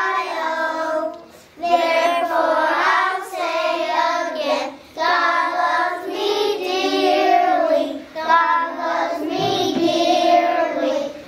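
A kindergarten children's choir singing together, in phrases broken by short pauses about every three seconds.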